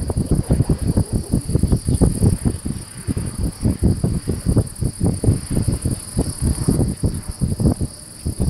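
Crickets chirping steadily in a high, even trill, with wind buffeting the microphone in loud, irregular low gusts.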